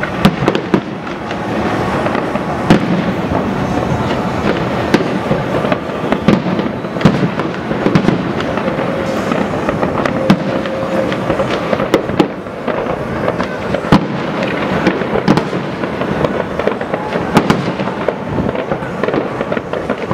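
Fireworks display: aerial shells bursting in rapid succession, a continuous run of sharp bangs with no pause.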